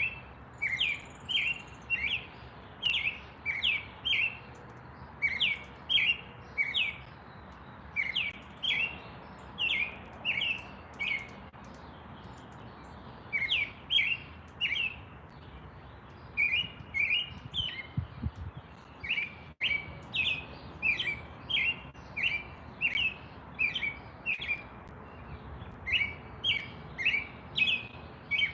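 Bird chirping over and over: short, sharp, high chirps in quick pairs and runs, with a pause of about two seconds near the middle.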